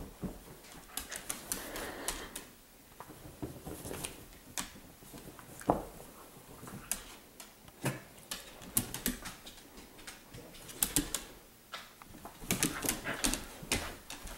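Dogs playing on a blanket-covered dog bed: irregular clicking and scuffling, with small dog noises now and then.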